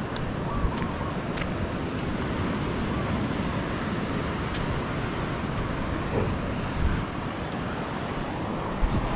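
Steady rushing of wind and surf at the water's edge, with a few faint chirps.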